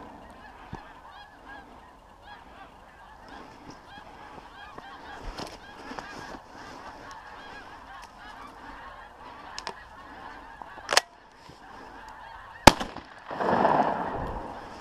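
A flock of geese calling and honking continuously. Two sharp knocks come near the end, the second much louder.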